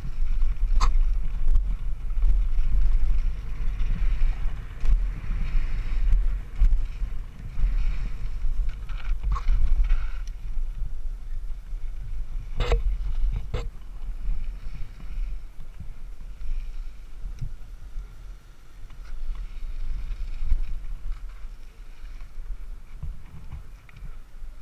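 Wind and ride noise rumbling on a helmet-mounted camera's microphone as a BMX bike rides a dirt-and-asphalt track, with a few sharp knocks and rattles from the bike, two of them about a second apart about halfway through. The rumble eases over the last part as the bike slows.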